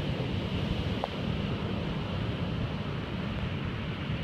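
Heavy storm surf breaking and washing up the beach, with strong wind buffeting the microphone in a steady low rumble.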